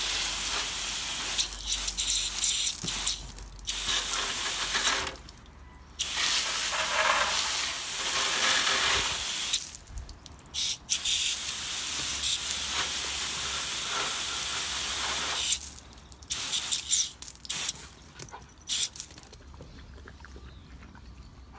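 Garden hose spray gun jetting water onto a motorcycle's rear wheel and exhaust, in long spells broken by short pauses as the trigger is released. It turns into a few short bursts and stops a couple of seconds before the end.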